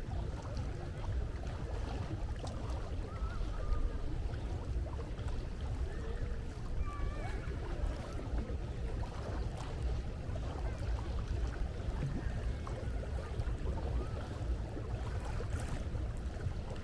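Sea waves and wind making a steady low rumble, with faint gull calls now and then.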